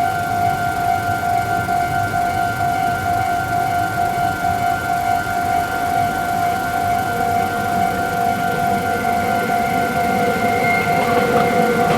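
Japanese level-crossing warning bell sounding steadily, its two-tone electronic ding repeating rapidly. In the last few seconds the running noise of an approaching train grows underneath it.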